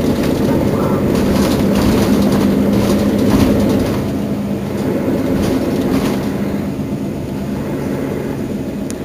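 Mercedes-Benz Citaro Facelift city bus engine idling steadily while the bus stands at the stop, with a few faint clicks over it. It eases off slightly after about four seconds.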